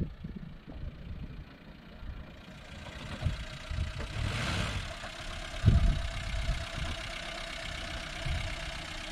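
A vehicle engine running at low revs, with irregular low thuds, the loudest about halfway through, and a brief hiss shortly before it.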